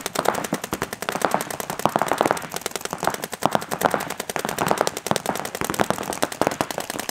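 Paintball markers firing in sustained rapid strings, many sharp shots a second with hardly a pause.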